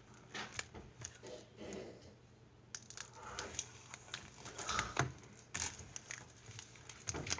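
Faint crinkling of foil booster-pack wrappers and light clicks as sealed Pokémon card packs are handled and shuffled.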